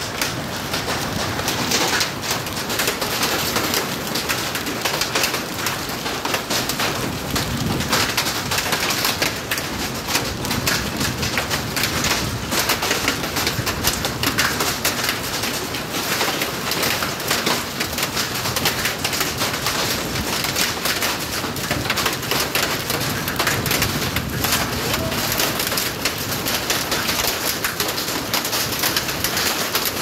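Heavy rain with small hail pelting a tiled roof and a hard patio floor, a dense, steady patter of countless hits.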